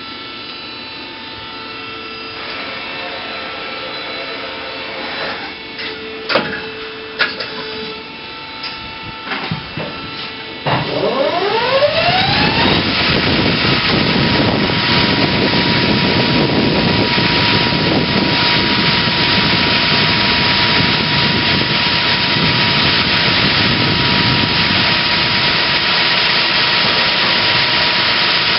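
Daewoo Puma 12LC CNC lathe running: at first a steady hum with a few sharp clicks, then, about ten seconds in, a rising whine as the spindle speeds up. It settles into a loud, steady run with a constant high tone.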